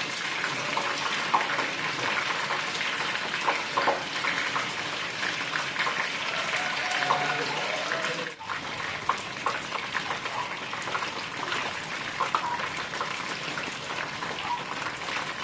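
Oil sizzling steadily in a frying pan, with many small crackles and pops.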